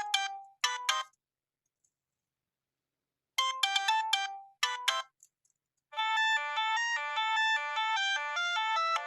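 Siemens A65 mobile phone playing polyphonic ringtones. A short electronic jingle phrase plays, stops, and repeats after a pause of about two seconds. About six seconds in, a different, busier melody begins and runs on without a break.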